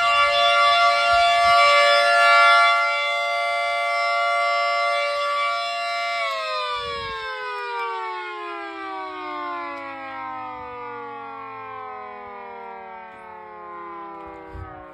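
Federal Signal 2T22 dual-tone electromechanical siren sounding a steady two-note chord, then winding down about six seconds in, its pitch sliding slowly lower as the rotors coast to a stop.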